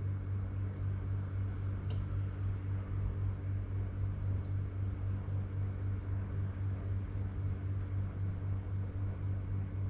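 Steady low electrical hum, with faint light clinks of a spoon against a steel pot about two and four and a half seconds in.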